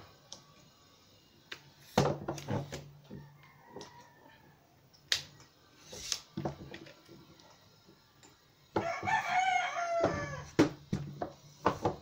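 A rooster crows once, a long call about nine seconds in, the loudest sound. Around it come a handful of sharp clicks and knocks from a tripod's leg sections and locks being handled.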